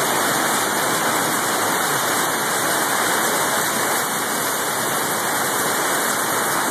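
Steady rain falling: an even, unbroken hiss of drops with no let-up.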